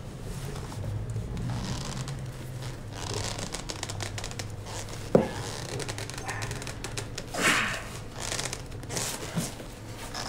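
Leather rustling and crinkling as a shoemaker handles a shoe and the leather knee strap on his lap, with one sharp knock about five seconds in and a brief louder scrape a little later.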